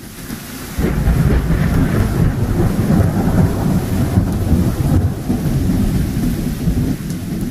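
Thunderstorm: loud, continuous rolling thunder that swells in over the first second, with a steady hiss above the rumble.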